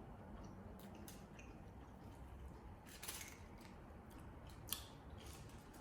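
Close-up chewing of crispy fried calamari: a few scattered crisp crunches and mouth sounds, the loudest about three seconds in and a sharp one near the end.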